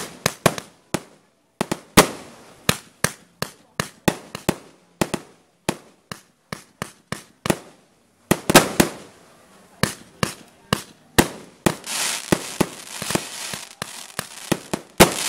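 Aerial fireworks bursting in quick succession: sharp bangs often two or three a second, with short gaps. From about twelve seconds in, a steady hissing crackle runs beneath the bangs.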